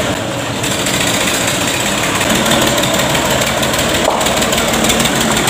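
Farm tractor's diesel engine running steadily as it pulls a loaded trailer up the street and passes close by, getting slightly louder as it nears.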